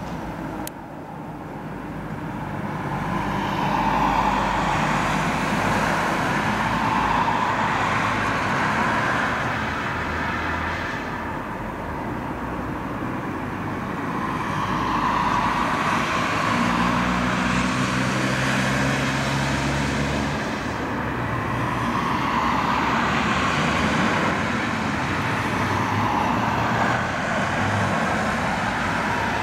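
Jet noise from the four Progress D-18T turbofans of an Antonov An-124-100 freighter flying past on approach: a steady rushing rumble that swells and eases several times.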